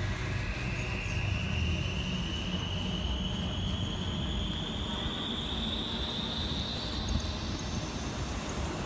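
Traffic noise with a steady low rumble, and a vehicle's high whine rising slowly and steadily in pitch as it gathers speed.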